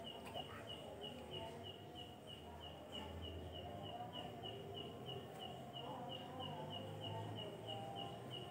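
Faint, evenly repeated high chirps, about two or three a second, over a low background hum.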